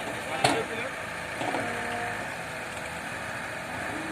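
Heavy earthmoving machinery running steadily, a diesel engine din, with one sharp knock about half a second in.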